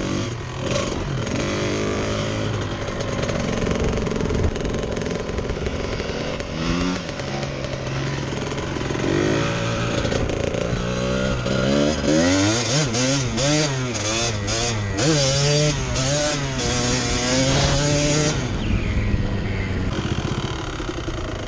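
Trail motorcycle engine ridden over rough ground, its note rising and falling again and again as the throttle opens and closes. The swings come quickly in the middle, and the engine quietens near the end.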